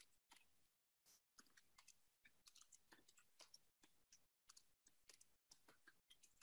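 Faint computer keyboard typing: irregular runs of quick key clicks with brief pauses between them.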